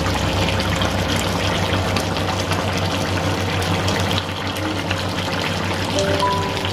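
Pot of tomato-based pork belly stew bubbling at a simmer, its broth crackling and popping over a steady low hum. A few notes of background music come in near the end.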